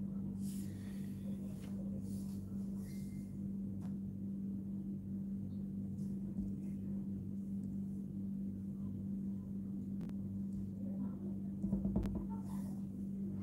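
Steady low electrical hum, with faint rustles and a few soft clicks scattered through it, and a low bump about twelve seconds in.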